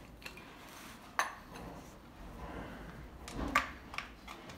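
A few sharp metallic clicks and clinks as a compression tester and its fitting are handled, unscrewed and moved between spark-plug holes on a bare engine's cylinder head. The loudest click is about three and a half seconds in, with lighter ones about a second in and just after.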